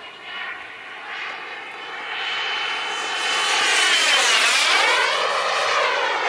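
Small model jet turbine (Wren 54 Mk4) in a yellow RC F-16, its high whine growing louder as the jet approaches and loudest about two-thirds of the way in as it flies past low.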